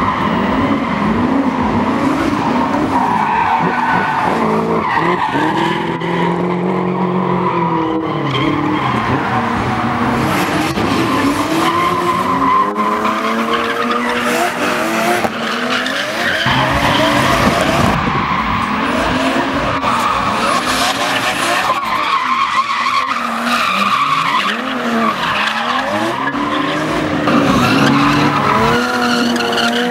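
Drift cars sliding sideways at full power, their engines revving up and down over and over while the rear tyres squeal steadily.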